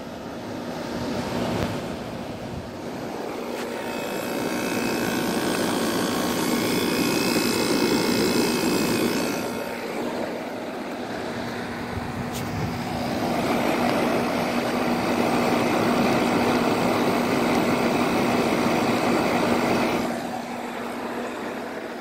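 Frigidaire window air conditioner running, its fan rushing air through the condenser coil over a steady hum. The rush swells and eases twice.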